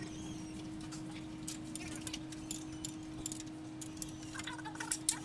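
Scattered light metallic clinks and ticks at irregular intervals over a steady low hum.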